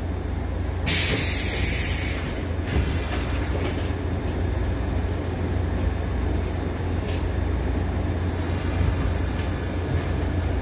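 JR West 115 series electric train standing at a platform, heard from inside the carriage: a steady low hum from its equipment, with a loud burst of hiss about a second in that lasts just over a second.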